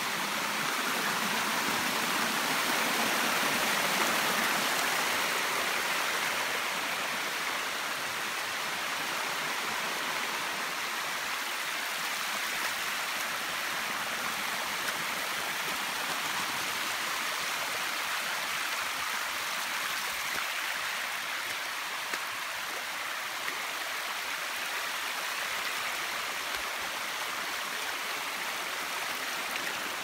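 Shallow hot-spring stream cascading over rock slabs and boulders in a steady rush of water, a little louder a few seconds in.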